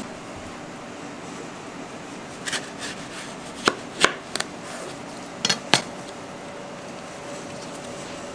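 Chef's knife cutting through a dragon fruit on a plastic cutting board, the blade knocking against the board several times in short sharp taps.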